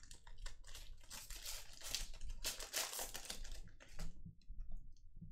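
Trading cards and a pack wrapper being handled: dense crinkling and rustling for about four seconds, then a few light clicks.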